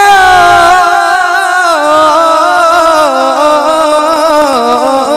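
A man singing a naat into a microphone, drawing out one long, wavering melismatic note that slowly falls in pitch.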